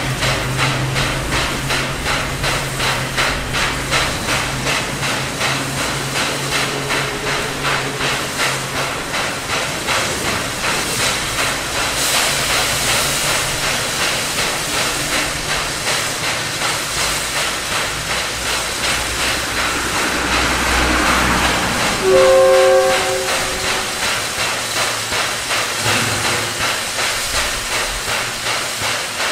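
SY-class 2-8-2 steam locomotive hauling a freight train, its exhaust beating in an even, rapid rhythm, with steam hissing. About two-thirds of the way through, a short blast on the whistle is the loudest sound.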